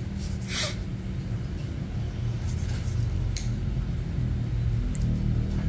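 A steady low hum runs throughout. Over it come a few short, sharp clicks of small steel toenail nippers cutting into a thick toenail.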